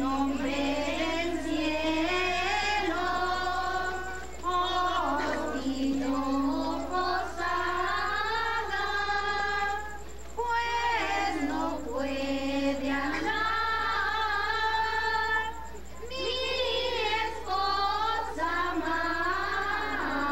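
A group of children's and women's voices singing a Christmas posada song together, in long held phrases with short breaks between them.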